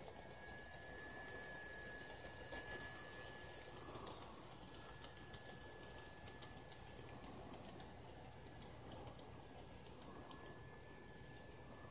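Kato N scale model train running on its track: faint, rapid clicking of the small wheels over the rail joints, frequent from about halfway through, over a steady thin high whine.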